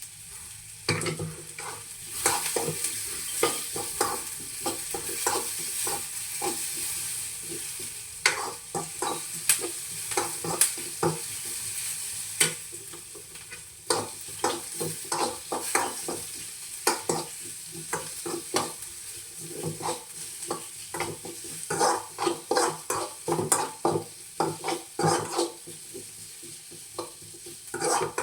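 Sliced onions sizzling in hot oil while a spatula stirs them, scraping and knocking against the pan. The stirring strokes come quicker and sharper in the second half.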